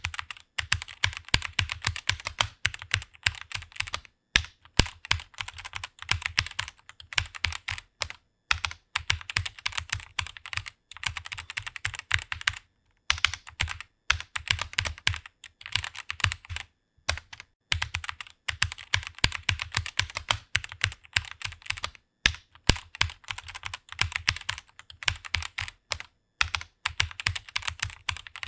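Fast typing on a computer keyboard: a rapid, continuous run of key clicks broken by short pauses every few seconds.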